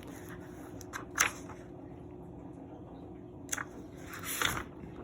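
A paper notebook being handled and its pages turned: a few short rustles, with a longer one near the end.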